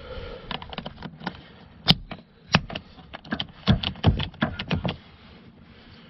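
Small plastic power seat switch knobs clicking and tapping as they are handled: one sharp click about two seconds in, then a quick run of clicks and taps over the next few seconds.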